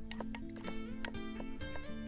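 Background music with held notes and a change of chord near the end, with a few light clicks over it.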